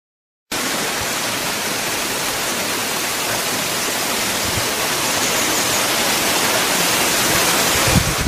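Steady rush of running water, cutting in suddenly about half a second in, with a few low bumps near the end.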